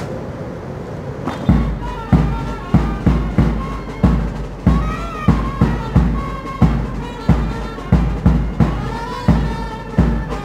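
Ceremonial band music for a guard of honour salute: a wind-instrument melody over heavy bass drum beats, starting about a second and a half in.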